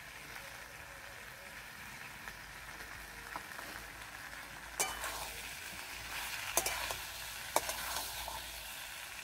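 Prawns just added to a thick spiced curry sizzling in a kadai, stirred with a metal spatula. A steady sizzle runs throughout, and the spatula scrapes sharply against the pan several times in the second half.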